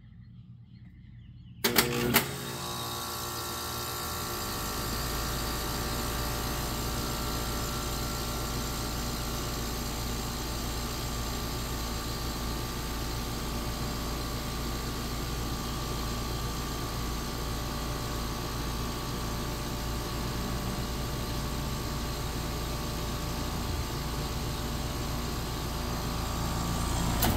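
Trane air conditioner starting up: two sharp clicks about two seconds in, then the unit runs with a steady mechanical hum, a deeper low hum joining a couple of seconds later.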